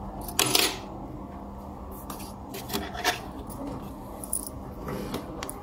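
A short scraping rub about half a second in, then scattered light clicks and taps of a metal screwdriver against the CD player's circuit board and metal chassis.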